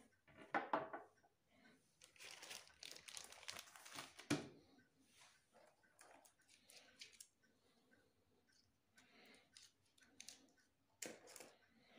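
A clear plastic sleeve crinkling as it is handled and laid on a wooden table, mostly in the first half. A cord and plug are set down with a few light knocks.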